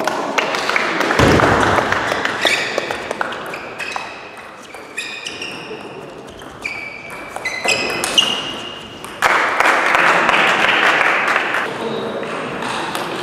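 Table tennis rally: the celluloid ball clicking off bats and table, with short high squeaks of shoes on the court floor. About nine seconds in, a brief burst of applause.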